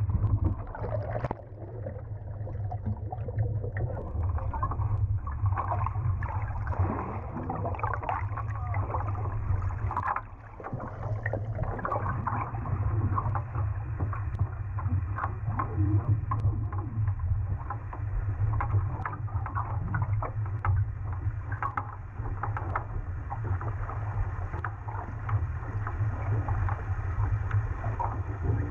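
Water heard from below the surface through a submerged camera: muffled, with a steady low rumble and many small clicks and crackles of moving water.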